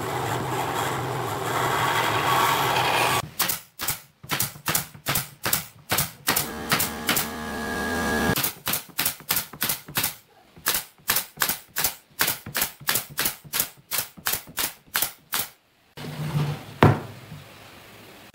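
Nail gun firing a long series of nails into pine boards, about two shots a second, with a short break midway. A steady machine hum comes before the nailing, and a single loud knock comes near the end.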